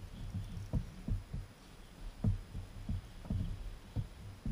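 Small waves slapping against the plastic hull of a sit-on-top kayak: irregular low knocks, two or three a second.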